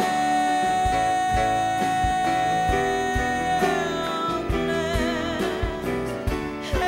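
Live band music: a woman's singing voice holds one long note for about three and a half seconds, then carries on with vibrato, over plucked upright double bass and light drums.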